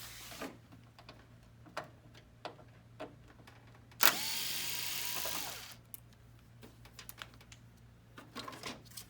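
A handheld electric screwdriver briefly spins up and runs for about a second and a half, backing out a screw from the copier's finisher cover, with small clicks of handling around it.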